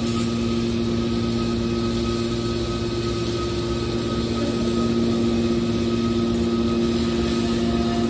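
Hydraulic scrap metal baler's power unit running: a steady machine hum with a constant low whine over a background hiss.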